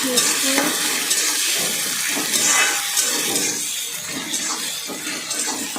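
Onion-tomato masala paste sizzling in hot oil in a pan while being stirred, a steady hiss with a few light scrapes of the spoon.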